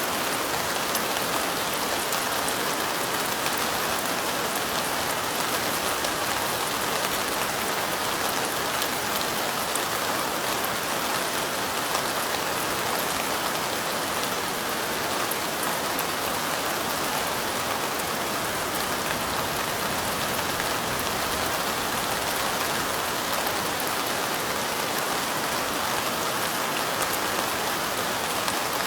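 Steady light rain falling, a dense even patter of raindrops.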